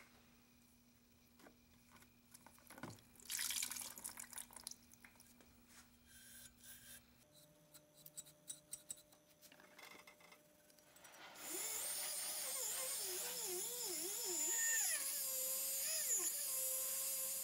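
Water splashing and sloshing as cannon parts are moved in a tub of rust-remover bath. About two-thirds of the way in, a small high-speed handheld rotary tool starts up and works the cast-iron cannon body, its whine wavering up and down in pitch as it is pressed onto the metal.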